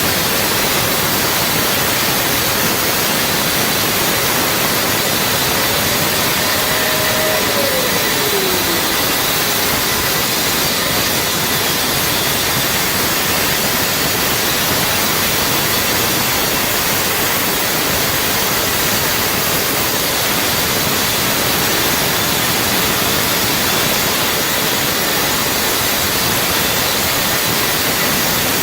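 A power tool running steadily with a loud, even hiss; a faint motor tone rises and then falls about seven seconds in.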